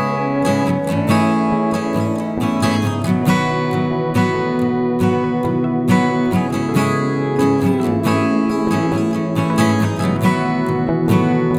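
Background music: strummed acoustic guitar with a regular rhythm.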